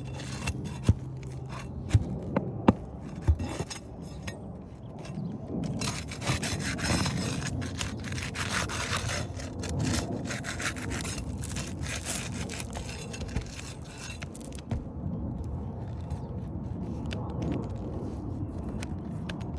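Asphalt shingles being pried loose and dragged by hand and with a metal pry tool: rough scraping and rubbing of the gritty shingle surfaces, with a few sharp knocks in the first few seconds.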